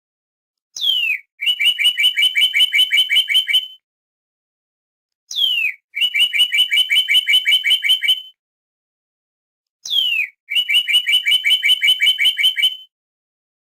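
Northern cardinal singing: three phrases about four and a half seconds apart, each a single whistle slurring downward followed by a rapid run of short repeated notes.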